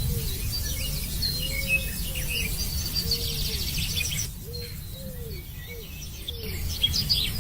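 Birds chirping and twittering over a steady low rumble, with a row of short, lower calls repeating.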